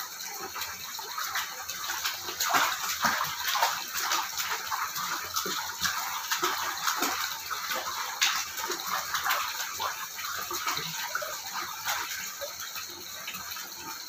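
Water lapping and splashing gently in a small stone-lined soaking pool, a steady wash of many small irregular splashes and trickles.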